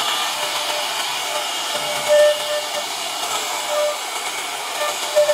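CNC router spindle running with its bit cutting into a wooden panel: a steady rushing hiss with a pitched whine that comes and goes as the bit bites, and brief louder surges about two seconds in and again near the end.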